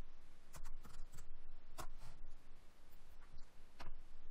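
About half a dozen faint, irregularly spaced clicks of a computer keyboard and mouse, heard while a filename is typed and a save dialog is confirmed.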